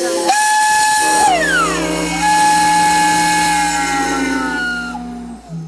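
Several steam whistles blowing at once, fed from a campus power plant's steam line. A high whistle sounds, its pitch sliding steeply down as it is shut off about a second in, then sounds again, over the lower chord of a chime whistle that holds for about four seconds and stops near the end.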